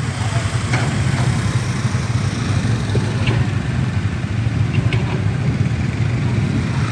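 Vehicle engine running steadily at idle, with a few faint short chirps over it.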